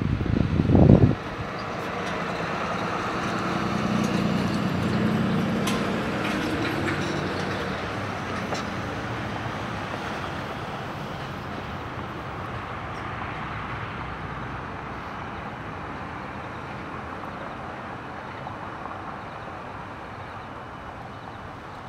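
A vehicle passing at a distance: a steady rumble that swells about four to six seconds in, then slowly fades away. A loud low rumble in the first second cuts off suddenly.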